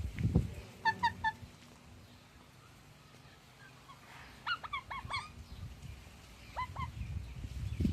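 Rose-ringed (Indian ringneck) parakeet giving short, sharp calls in bursts: three about a second in, a quick run of about five at four and a half seconds, and two more near the end. A low thump sounds at the very start.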